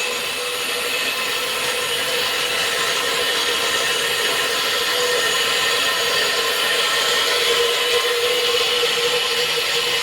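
Core cutting machine running steadily as it cuts a hole: a constant motor whine with a grinding rasp.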